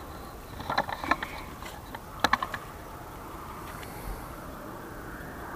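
A fishing keepnet being handled in shallow river water: a few sharp clicks and short rattles about one and two seconds in, then a soft, steady wash of water.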